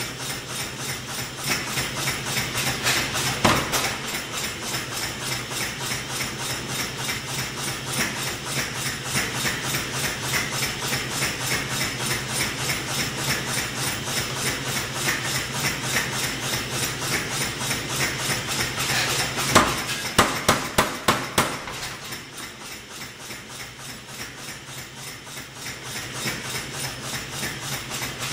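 Massey power hammer running, its motor humming steadily under an even rhythm of ram blows, about three a second. A short run of heavier blows comes about twenty seconds in, followed by a lighter stretch before the strokes build again.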